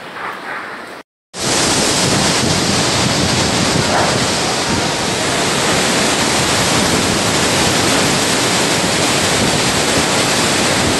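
Cyclone storm wind and heavy rain, a loud, steady rushing. It starts after a brief cut to silence about a second in.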